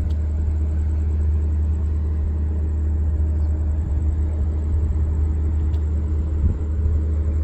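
A steady low rumble that holds an even level throughout.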